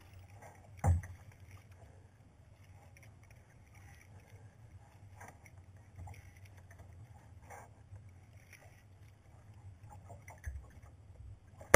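Water lapping and splashing against a sea kayak's hull as it is paddled, with one sharp knock about a second in.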